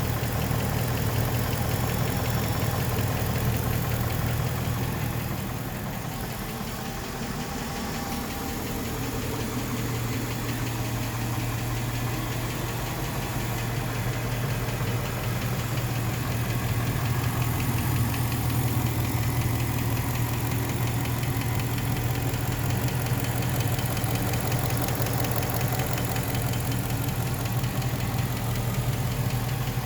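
Chrysler 5.7-litre HEMI V8 idling steadily with a knock. The level dips slightly for a few seconds about six seconds in.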